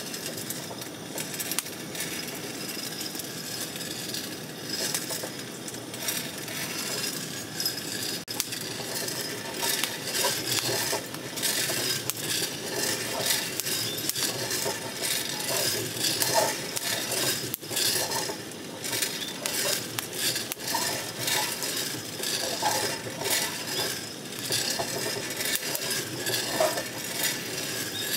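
Coffee beans tumbling and rattling inside a hand-cranked stainless-steel mesh drum roaster as the crank is turned, a steady stream of small clicks that grows denser and sharper from about a third of the way in.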